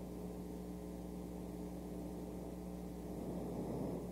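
Steady low electrical hum with a hiss under it, and a faint swell of noise about three seconds in.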